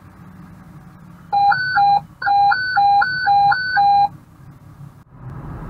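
Fire dispatch radio alert tone: a high and a low beep alternating quickly, about two high-low cycles a second, in a short burst and then a longer one, over a faint low radio hiss.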